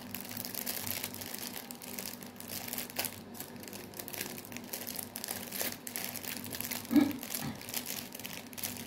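Small plastic bags of resin diamond drills crinkling and ticking as they are handled and counted.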